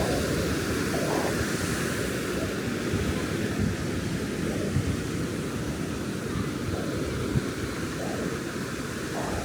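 Ocean surf washing onto a sandy beach: a steady, unbroken rush of wave noise.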